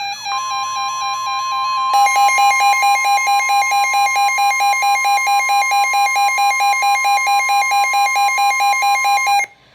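Electronic emergency-alert attention tones: a steady high tone, joined about two seconds in by a buzzy lower tone pulsing about five times a second. Both cut off suddenly near the end.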